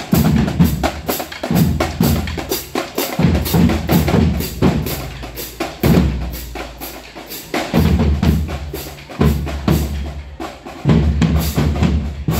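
Marching drumline playing live: snare drums beating fast, dense rhythms over heavy bass-drum hits, with cymbal crashes.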